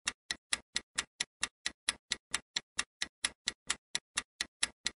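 Ticking countdown-timer sound effect: a clock-like tick repeating evenly, about four and a half times a second, as the quiz's answer timer runs down.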